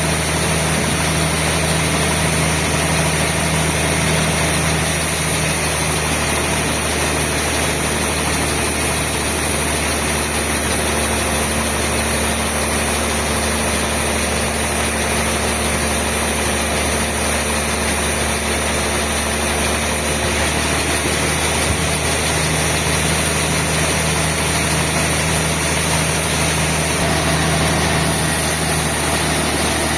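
Sawmill machinery running steadily: a continuous low mechanical hum with a constant high hiss, no breaks or impacts.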